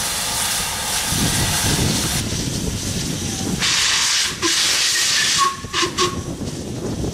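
Steam locomotives hissing loudly as steam blows from the cylinder drain cocks, with a low uneven chuffing under it, then a stronger burst of steam hiss. Two or three short whistle peeps come near the end.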